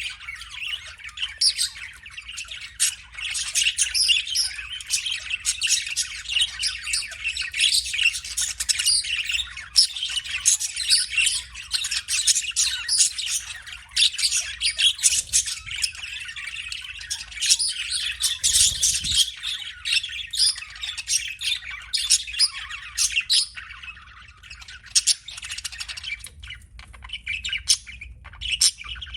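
Budgerigar chirping and chattering: a rapid, unbroken stream of short, high chirps and squawks that thins out a little near the end.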